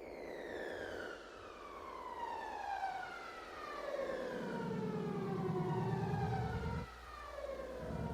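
Electronic music: layered pitch glides with harmonics, each sweeping down over a few seconds and curling back up slightly at the bottom, overlapping like sirens. A low buzzing layer joins about four seconds in, cuts off suddenly near seven seconds and comes back just before the end.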